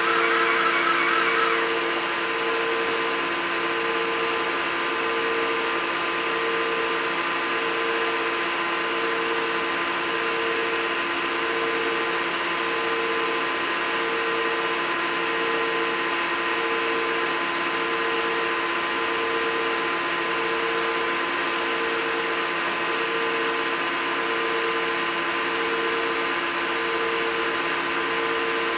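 Tensile testing machine running steadily as it pulls a hot-rolled steel test bar, a constant hum with one tone pulsing about every second and a quarter. A brief rattle is heard at the start.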